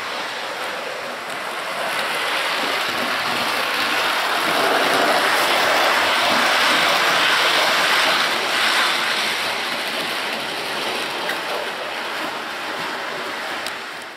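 Model E412 electric locomotive and short train of sliding-door wagons running on the layout's track: a steady rolling rush of wheels on rails that grows louder as the train passes close by, then eases off.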